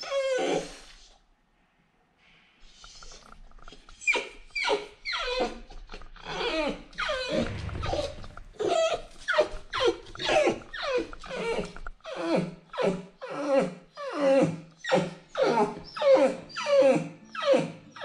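Puppy whining and crying at a closed door after being left home alone. A quick string of short, high cries falling in pitch, about one to two a second, starts after a brief pause near the beginning.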